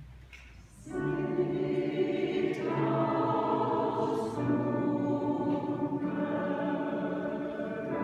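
Mixed choir of men's and women's voices singing a slow, sustained choral piece, entering together after a short pause about a second in, with a change of chord a couple of seconds later.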